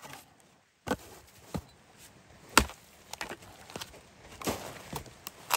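Irregular sharp chopping knocks, a blade striking wood, the loudest about two and a half seconds in.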